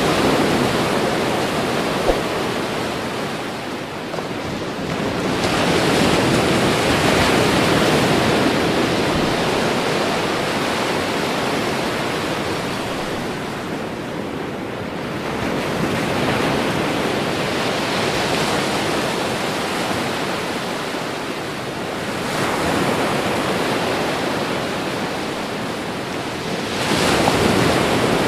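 Ocean surf breaking on a sandy beach: a continuous wash of waves that swells and eases every several seconds as each wave comes in.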